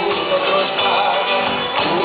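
Live Argentine folk song played on acoustic guitars and bass guitar, with a man singing at the microphone.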